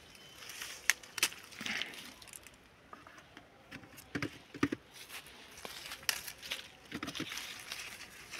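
Apple-tree leaves and twigs rustling and snapping as apples are picked by hand, with two sharp snaps about a second in. Dull knocks around four to five seconds in as apples go into a plastic bucket, then more leaf rustling.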